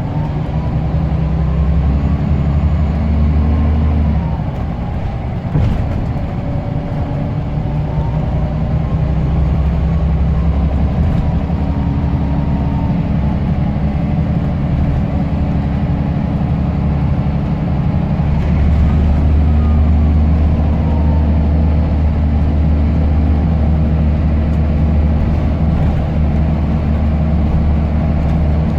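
Scania L94UB bus's turbocharged diesel engine running under load, with a faint turbo whistle that rises and falls in pitch about three times. The engine note dips briefly about five seconds in, then pulls on.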